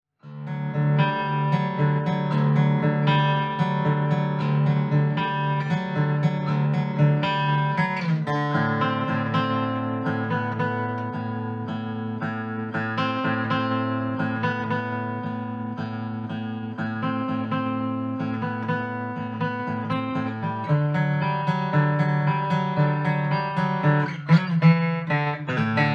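Acoustic guitar playing a slow piece in picked chords, with the chord changing about eight seconds in and again near twenty-one seconds.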